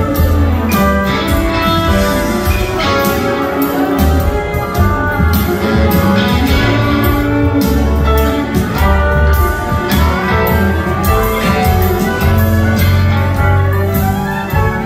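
Live band playing an instrumental passage, heard from the audience: guitar lines over upright bass, piano and drums.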